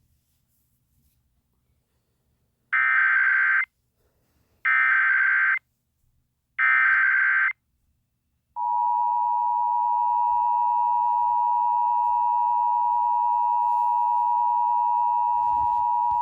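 Emergency Alert System SAME header: three identical bursts of screeching digital data, each about a second long, starting about three seconds in. A little past halfway the EAS two-tone attention signal begins, a steady, loud, high dual tone. Together they mark the start of an EAS activation, here for a severe thunderstorm warning.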